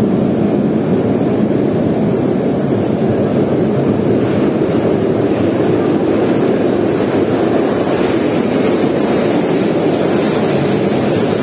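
Steady rumble of a Volgograd high-speed tram (Metrotram) train approaching through the tunnel into an underground station. A thin high whine joins about eight seconds in.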